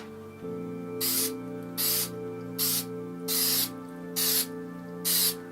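Aerosol spray adhesive can sprayed in about six short hissing bursts, one every second or less, laying down an even coat of glue. Background music plays underneath.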